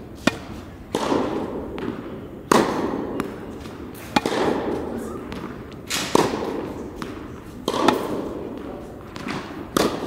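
Tennis balls struck with rackets and bouncing during a rally on an indoor court. The sharp hits come every second or two and echo through the large hall.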